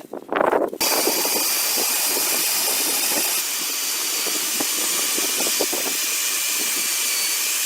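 A steady loud hiss starts about a second in and holds evenly, with faint scattered knocks underneath.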